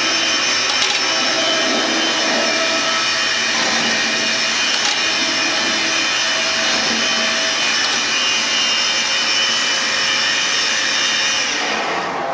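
Techno Isel CNC router running: a loud, steady whine made of several high, fixed tones over a rush of air-like noise. Near the end the high whine drops away, leaving a quieter, steady running noise.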